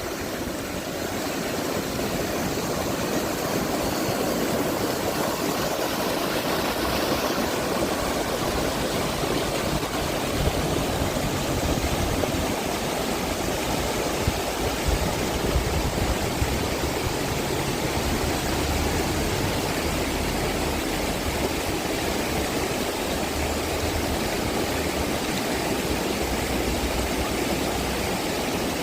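Steady rush of a river's flowing water, with an even low rumble under it.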